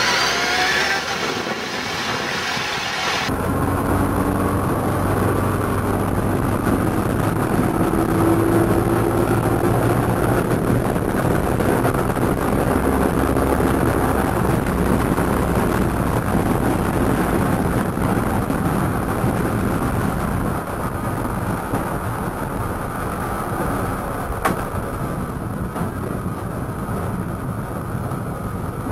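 Motorcycle engine running, with steady wind rush, heard from on board the bike. The pitch rises briefly about eight seconds in.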